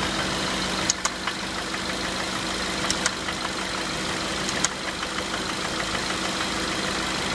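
Ford Focus engine idling steadily, with sharp clicks at uneven spacing, several within a few seconds. This is the unidentified noise the owner wants diagnosed.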